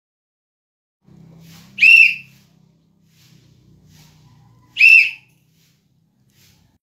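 Referee's whistle blown in two short, shrill blasts about three seconds apart.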